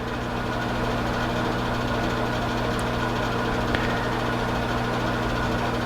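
Steady electrical hum with a whir of machine noise, loudening slightly and otherwise unchanging.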